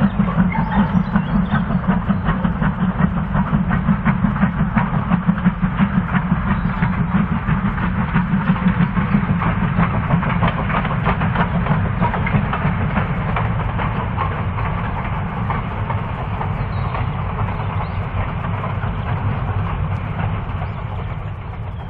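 GWR 4575-class Prairie tank steam locomotive No. 5542 hauling a goods train, its exhaust beating in a steady rhythm of about three beats a second and gradually fading over the second half.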